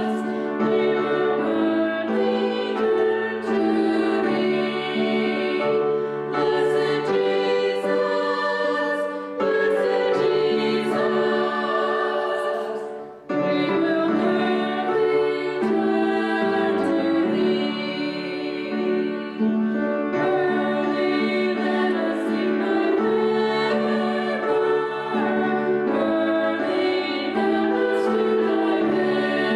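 Women singing a slow hymn with piano accompaniment, with a short break in the music about halfway through.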